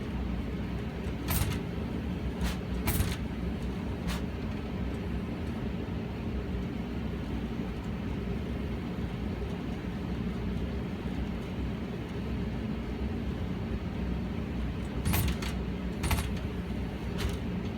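New Honeywell/Goodman gas furnace running with a steady low rumble, broken by sharp bumping knocks: four in the first few seconds and three more near the end. The bumping is a fault that the owner ties to debris in the furnace's flue drain.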